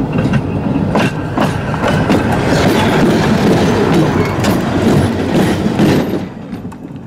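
A Romanian class 60 diesel-electric locomotive rolling directly over a microphone at rail level: heavy engine and running-gear rumble with several sharp metallic knocks as its wheels cross the bolted rail joint. The sound falls away quickly about six seconds in as the locomotive clears.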